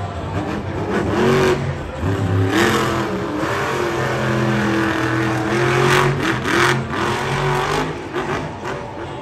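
Monster truck's supercharged V8 revving hard, its pitch climbing in quick rises, then held high and steady for a few seconds before falling away near the end.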